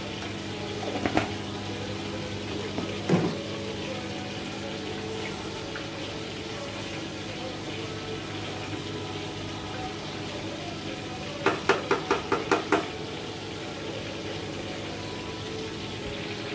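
A wooden spatula stirring red beans in a steel pressure cooker, with a few knocks early on and then a quick run of about seven sharp taps on the pot about two-thirds of the way through, over a steady kitchen hum.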